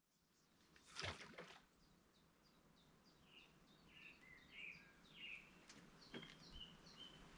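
Faint songbird chirping: a run of short, high, falling chirps repeated through the middle, over quiet outdoor ambience. About a second in there is a brief rustle, the loudest sound here.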